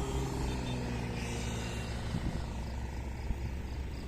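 Low, steady engine rumble of road traffic, with a humming engine note that fades about two seconds in. No horn sounds.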